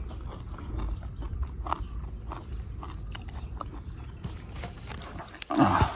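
Faint wet clicks of a ripe mango being bitten and sucked straight from the skin, over a low wind rumble on the microphone. Near the end comes a short, louder grunt.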